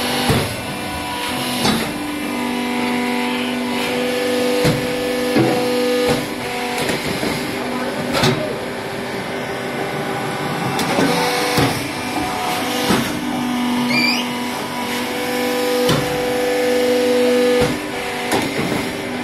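Bagasse briquette press (PMB 1200) running: a steady machine hum with sharp knocks every one to three seconds as the compressed briquette log is pushed out along the channel.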